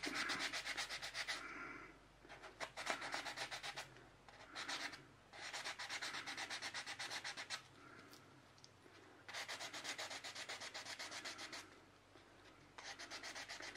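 1000-grit wet-and-dry sandpaper rubbing quickly back and forth against the edge of a cured epoxy resin piece, in several bouts of rapid strokes separated by short pauses.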